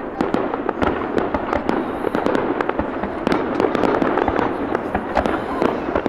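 Fireworks display going off, a dense run of pops and bangs several a second without a pause.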